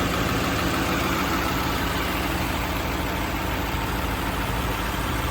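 Mercedes-Benz 300 SEL 6.3's 6.3-litre M100 V8 idling steadily.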